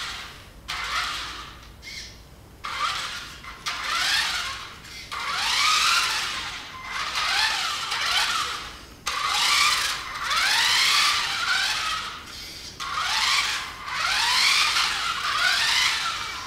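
Electric drive motor and gears of a 1/12-scale Tamiya TL01 radio-control car, driven in short spurts. There are a dozen or so bursts of rising whine, each a second or two long, as the throttle is switched on and off from arrow-key presses.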